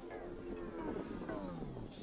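Background music whose tones all slide down in pitch together over about a second and a half, like a tape-stop transition effect, fading out near the end.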